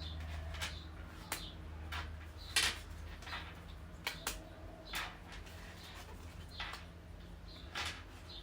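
Tarot cards being handled and turned over one by one: a string of short card slaps and slides at irregular intervals, over a low steady hum.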